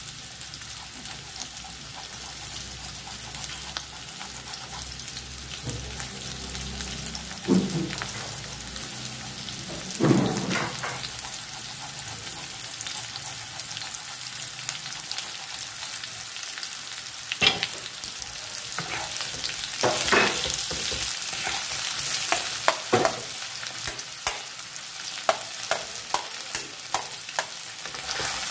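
Diced potatoes frying in hot oil in a pan, a steady sizzle, with a few knocks against the pan. Near the end come quick sharp taps as a wooden spatula starts stirring the potatoes.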